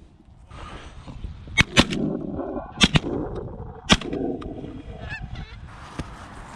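Geese honking overhead while shotguns fire about five times, the first four in two quick pairs and a last single shot about a second later.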